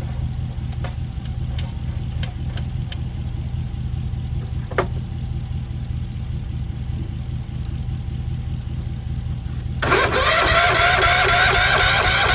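A steady low hum with a few light clicks, then about ten seconds in the Sears ST12 garden tractor's engine is suddenly cranked over hard and loud, pulsing rapidly without catching: it is starved of fuel.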